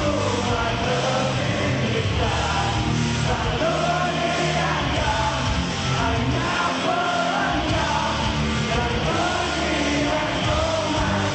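A rock band playing loud and live, with a sung vocal line over the full band.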